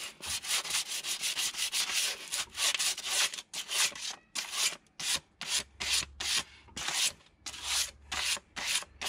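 Hand scrubbing with an abrasive on the car's metal wheel hub face, cleaning it so the new wheel spacer seats without being marked. The back-and-forth strokes come about three a second, then slow to about two a second after about four seconds.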